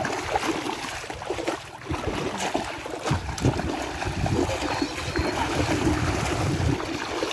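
Water splashing and sloshing as legs wade and then run through knee-deep muddy water, heavier from about three seconds in.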